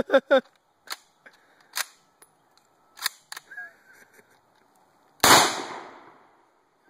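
Mosin-Nagant M91/30 obrez, a cut-down 7.62×54R bolt-action rifle, firing a single shot about five seconds in: one loud, ridiculous muzzle blast with a long fading echo. Before it come a few sharp clicks, about a second apart.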